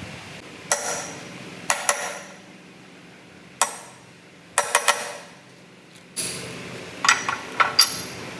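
Irregular metal-on-metal clanks and taps, some in quick pairs or threes, each ringing briefly, over a low steady machine hum.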